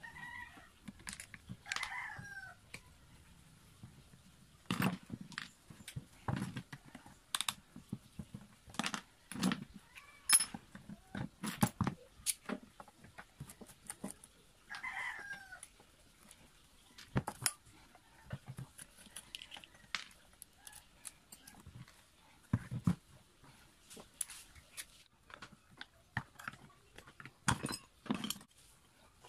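Irregular clicks and knocks of plastic and metal parts as an electric planer is handled and taken apart: the housing, motor plate and loose screws knocking against each other and the table. A few short animal calls that fall in pitch sound in the background near the start and again about halfway through.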